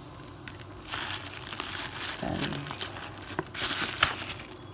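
Product packaging being handled and opened: dense crinkling and tearing of plastic and cardboard, starting about a second in, with many small clicks and one loud sharp snap near the end.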